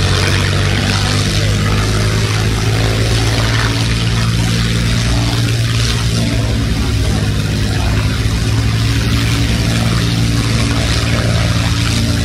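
A WWII fighter's liquid-cooled V-12 piston engine and propeller running loud and steady at a constant pitch.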